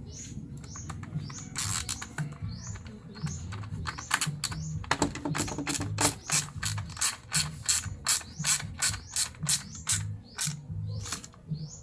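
Ratcheting screwdriver driving a screw back into a window blind's end plate: sharp ratchet clicks that settle into a steady run of about three a second from about four seconds in.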